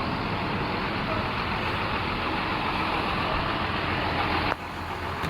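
Bus engine idling with a steady rumble and noise. Near the end the sound changes abruptly to a lower, steadier engine hum.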